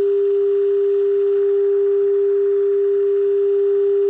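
A 1937 Philips 461A valve radio's loudspeaker sounds a steady, unbroken tone from the signal generator's modulation, with faint hiss beneath it. It is the test signal coming through the set while its antenna and RF coils are peaked during alignment.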